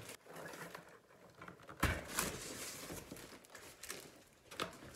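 Cardboard boxes being handled: an inner box pulled out of a larger shipping carton, with cardboard scraping and rustling and a sharp knock about two seconds in, another smaller knock near the end.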